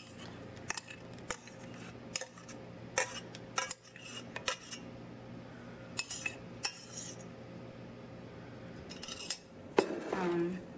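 Metal spoon scraping and clinking against a stainless steel saucepan while thick sauce is poured out of it: a string of irregular clinks and scrapes.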